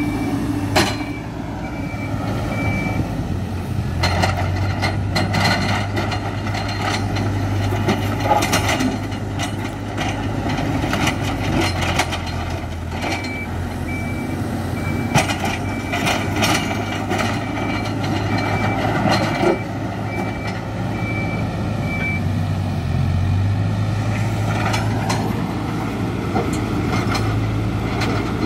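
Hidromek 102B backhoe loader's diesel engine running steadily under working load, with its reversing alarm beeping at the start and again through the middle. A whine drops about a second in and climbs again near the end, over repeated knocks and clatter.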